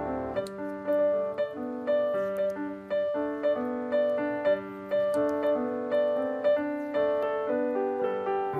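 Background piano music: a light, repeating melody of short notes.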